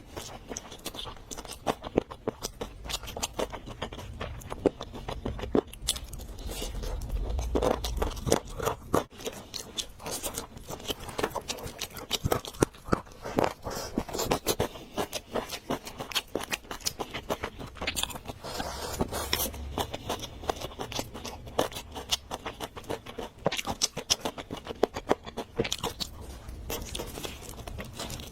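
Close-miked eating sounds: chewing and biting food, with a dense run of sharp, irregular crackling clicks and small scrapes.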